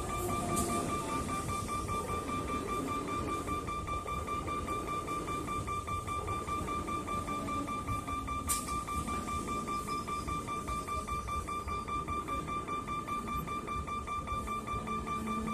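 An EMU suburban train rolls past, its wheels giving a continuous low rumble and clatter on the rails. A level-crossing warning bell rings without a break as a steady high tone. Two short sharp clicks come just after the start and about halfway through.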